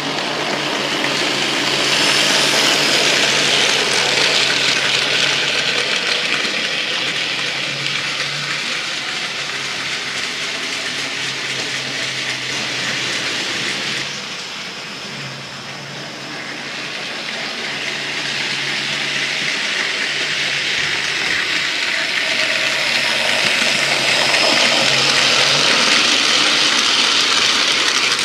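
Electrotren HO/OO-scale Taff Vale Railway 0-6-0 model locomotive running on the layout's track: a steady rushing rumble of its 5-pole motor and wheels on the rails over a low hum. The sound swells about two seconds in, fades around the middle, and swells again near the end as the engine passes close by.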